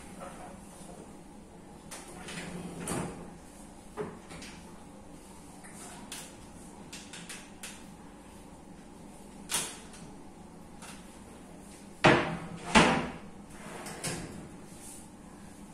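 Kitchen cabinet doors and drawers being opened and shut: scattered clicks and knocks from the runners, hinges and wire baskets, with two louder knocks close together near the end.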